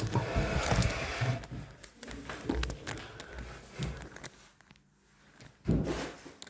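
Handling noise: rustling and scattered knocks as the cordless phone's base unit and cords are handled and set up, with a louder thump near the end.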